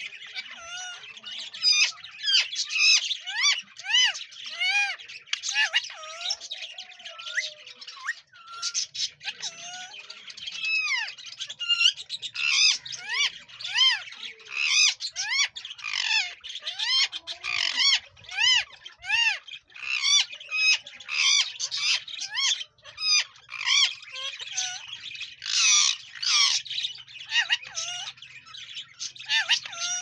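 Rose-ringed parakeet calling: a steady stream of quick squawks and chirps, each arching up and down in pitch, several a second.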